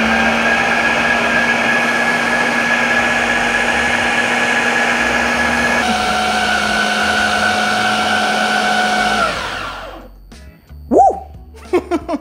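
Ninja 4-in-1 Intelli-Sense kitchen system's food processor motor running steadily on low, mincing cold, partly frozen meat with its blade into a fine paste. Its pitch steps down slightly about halfway, then it winds down with a falling whine and stops about ten seconds in.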